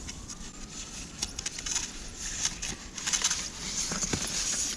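Footsteps crunching through snow, a series of short crisp crunches from about a second and a half in.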